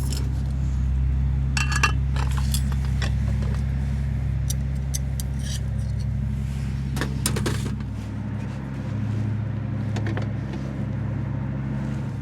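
A few light metal clinks and clatters of camp cooking kit being handled, over a steady low hum.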